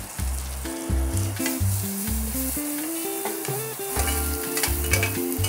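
Onion and small Thai shallots sizzling in hot oil in a stainless steel sauté pan while they are stir-fried and turned with tongs, with background music playing.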